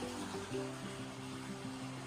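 Background music with held notes that change every half second or so and a bass note coming in about half a second in.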